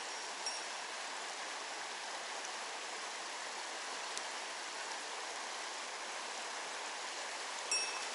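Mountain stream water rushing steadily over rocks, with a couple of faint short ticks near the start and the end.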